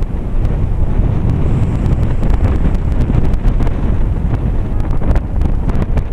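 Wind buffeting the microphone, a steady low rumble, with scattered faint clicks from about two seconds in.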